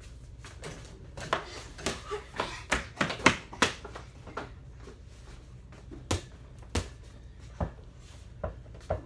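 Basketball bouncing on a hard indoor floor amid quick footsteps and scuffles: a dense flurry of knocks in the first few seconds, then a slower, even dribble of about one bounce every 0.7 s.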